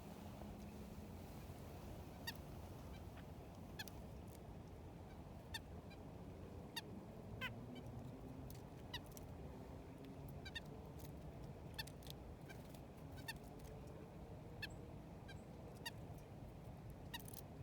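Faint bird calls: short, sharp notes repeated about once a second over low background rumble.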